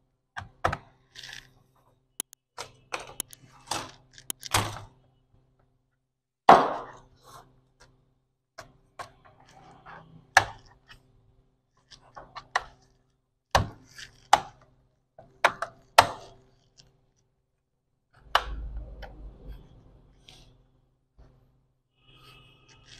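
Knocks, clicks and thunks of an HP G4 laptop's plastic case being handled and its bottom-cover screws driven in with a hand screwdriver, scattered irregularly, the loudest thunk about six and a half seconds in. Near the end comes a stretch of rubbing noise as the case is moved on the bench.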